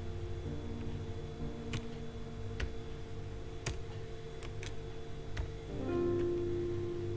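Soft background music of steady held tones, with about half a dozen separate sharp clicks of computer keyboard keys and a mouse as a word is retyped.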